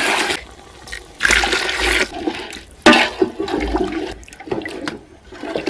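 Cupfuls of chicken soup poured into a pot of rice on the fire, splashing in several pours about a second apart.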